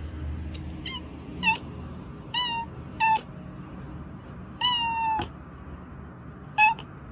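Domestic cat meowing in six short, high calls, the fifth the longest and falling slightly in pitch.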